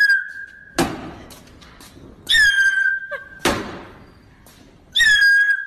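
Whistling firecrackers going off: a high whistle of about a second, holding nearly steady in pitch, cut off by a sharp bang, twice, and a third whistle starts near the end.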